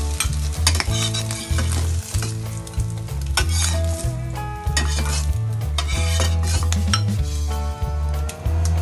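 Spatula scraping and clicking against a stainless steel frying pan as scrambled egg is scooped out, with hot oil sizzling in the pan. Background music with a steady bass line plays underneath.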